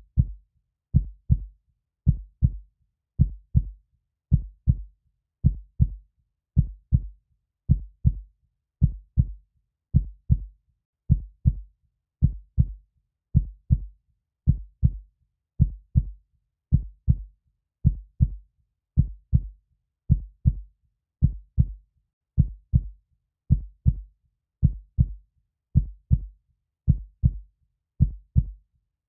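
Heartbeat: a slow, steady run of low, dull double thumps, lub-dub, a little under one beat a second, with silence between the beats.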